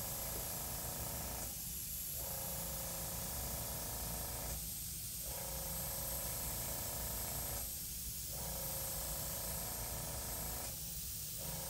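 Gravity-feed airbrush spraying paint, a steady hiss of air, with a slight dip about every three seconds, as a soft shadow is sprayed in.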